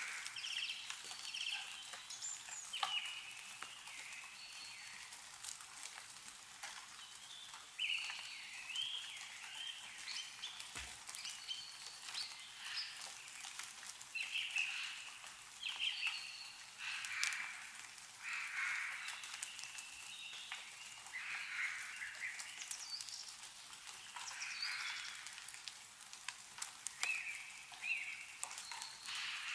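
Small birds chirping and calling again and again, over a steady fizzing patter and scattered sharp ticks of meltwater dripping from snowy trees.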